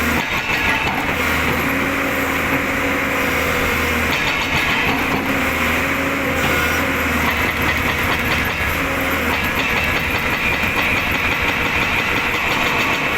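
Excavator's diesel engine running steadily under load, with intermittent clattering from the demolition work.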